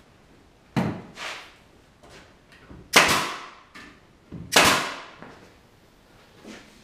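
Three sharp bangs from cabinet-building work, about a second in, at three seconds and just before five seconds, each fading out over about half a second, with a few lighter knocks between.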